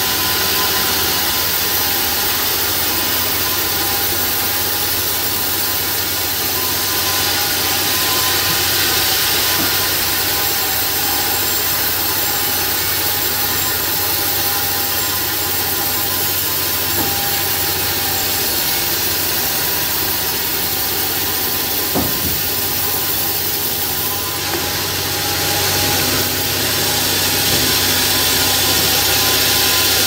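Home-built bandsaw sawmill running steadily, its blade sawing lengthwise through a large log. The machine's hum and the blade's cutting hiss hold steady throughout, growing a little louder in the last few seconds.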